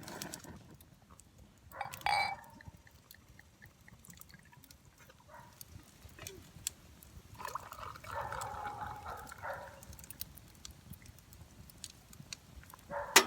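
Liquid being poured for about two seconds in the middle, with a short louder knock or clatter about two seconds in and a few small clicks.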